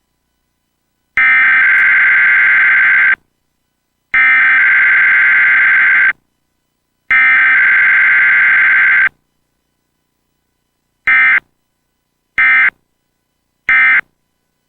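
Emergency Alert System weekly test tones: three bursts of SAME digital header data, about two seconds each and a second apart, then three short end-of-message bursts, with no attention tone or spoken message between them.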